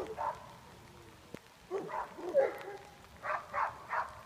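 A dog barking in short, repeated barks, ending in a quick run of four about three a second.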